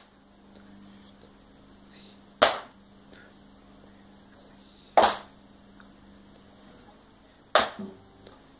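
Children's hand claps in unison, single sharp claps evenly spaced about two and a half seconds apart, a slow count-in before a guitar song. A faint steady low hum sits under the first several seconds.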